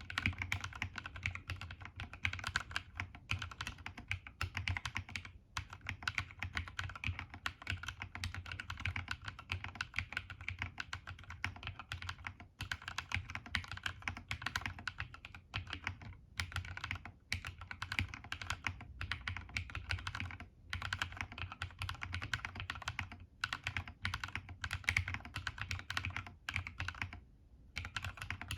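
Steady, fast typing on a CSTC40 ortholinear mechanical keyboard with KNC Red Jacket 2.0 switches and DSA keycaps, built without a plate so the switches sit in the PCB alone. Dense key clicks with a few brief pauses, the longest near the end.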